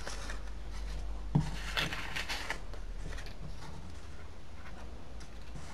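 Soft rustling and tapping of old paper banknotes being picked up and laid on a wooden tabletop, with one light tap about a second and a half in, over a low steady hum.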